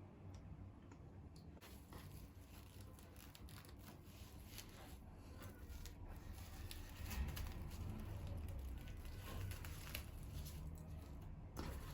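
Hands quietly handling things: soft rustling and crinkling with scattered small clicks, a little busier in the second half.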